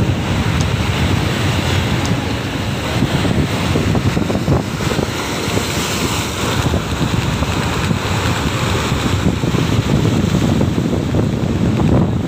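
Strong wind buffeting the microphone, with choppy waves breaking and washing against the rock boulders of a seawall.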